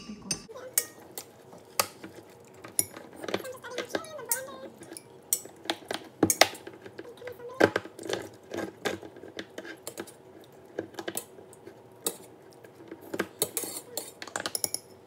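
Hand-held can opener being worked around a tin can: irregular sharp metallic clicks and clinks, several a second at times, with a few louder clanks.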